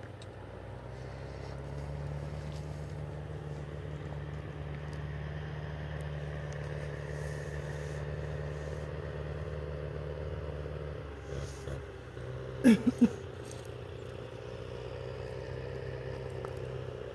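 A vehicle's engine running with a steady low drone that shifts about eleven seconds in. Near the end come three short, loud pitched sounds in quick succession.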